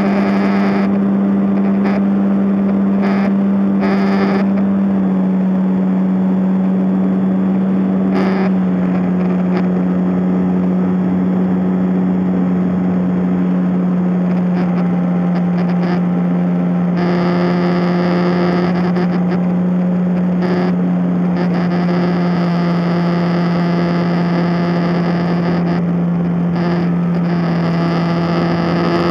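Motors and propellers of a camera drone in flight, picked up by its onboard microphone: a loud, steady hum whose pitch steps slightly lower twice in the first nine seconds, with short bursts of rushing noise.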